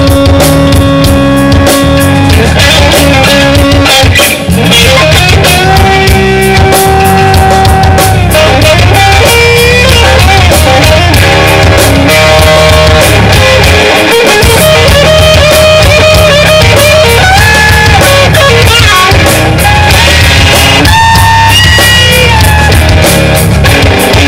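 A live blues-rock band playing an instrumental passage: a lead electric guitar holds and bends single notes over bass guitar and a drum kit, played loud through a PA.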